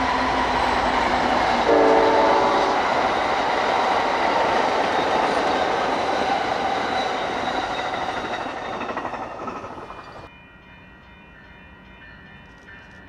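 Amtrak passenger train led by Siemens Charger diesel locomotives passing close by at speed, a loud steady rush of wheels and engines, with a short horn blast about two seconds in. After about ten seconds the train sound cuts off abruptly to a much quieter background.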